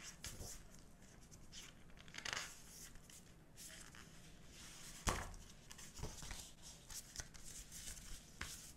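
Paper and card rustling as gloved hands lift and turn postcards, photo prints and a booklet, in a string of short rustles, with one sharp tap about five seconds in.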